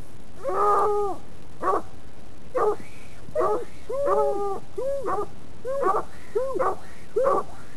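Two Walker coonhounds barking treed at the base of a tree, a steady string of short, pitched barks about one to two a second, the two dogs' voices sometimes overlapping.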